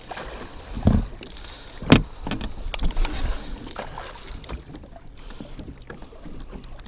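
Fishing pliers and the treble hooks of a large crankbait clicking and knocking as they are worked out of a caught walleye's mouth: a few sharp knocks, the loudest about two seconds in, then a run of small clicks, over low water noise against the boat.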